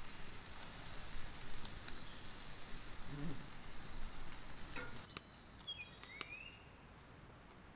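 Food sizzling in a frying pan on a camp stove, with a bird repeating a short call about every 0.7 s. The sizzle stops about five seconds in, leaving birdsong and a few sharp clicks.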